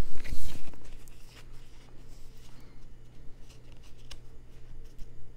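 A stack of game cards rustling and sliding against each other as they are handled, loudest in the first half second, then quieter scattered rustles and small clicks.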